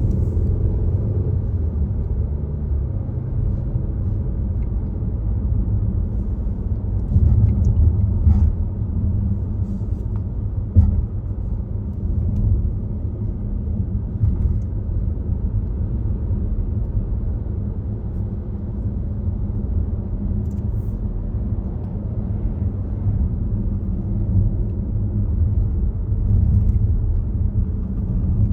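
Volvo XC60 driving along at speed: a steady low rumble of road and engine noise, with a few faint ticks and one short knock partway through.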